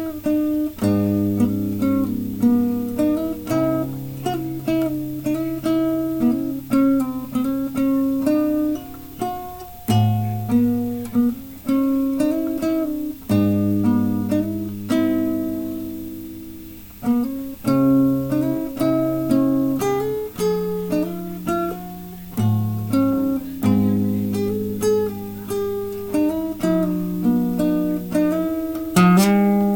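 Solo acoustic guitar playing a slow piece: plucked notes ring out and fade over held bass notes, with a quick strum near the end.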